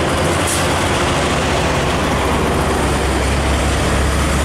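Heavy diesel trucks passing close by on a highway: a steady, loud engine rumble and road noise.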